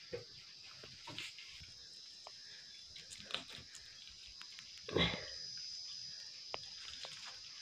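Knife cutting up a raw chicken against a wooden chopping block: scattered soft knocks and handling sounds, with a louder thud about five seconds in.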